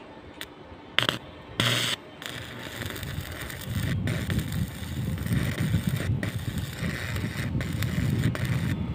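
Stick arc welding on steel: two short arc strikes about a second in, then a steady crackling arc with a few brief breaks.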